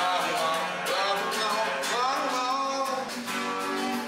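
Background music led by a strummed acoustic guitar, with a melody line that bends in pitch about a second in.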